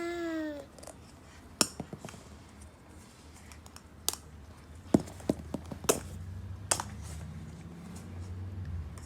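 A baby's short vocalization, its pitch rising and then falling, ends just after the start. Then come several scattered sharp clicks and taps, with a low steady hum from about halfway on.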